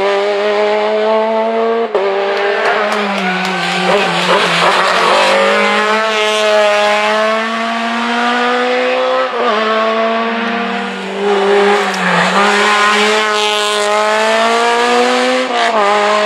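Rally car engines accelerating hard along a tarmac stage, the engine note climbing steadily in each gear and dropping at each upshift, several times over.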